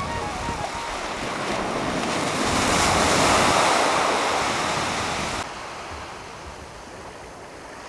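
Small waves breaking and washing on a beach, with wind on the microphone; the surf swells to its loudest about halfway, then cuts off abruptly to a quieter, steady wash.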